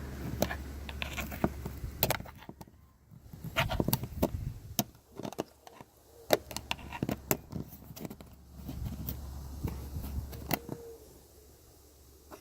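Irregular clicks, taps and rattles of plastic interior trim and clips being worked loose by hand, over a low steady hum in the first two seconds.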